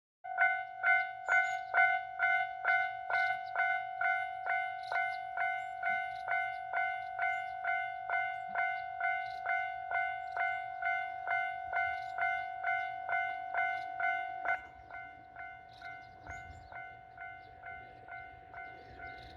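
Japanese railroad crossing warning bell ringing its repeated 'kan-kan' chime, about two strikes a second, warning of an approaching train. About fifteen seconds in the bell drops to a lower volume and keeps ringing.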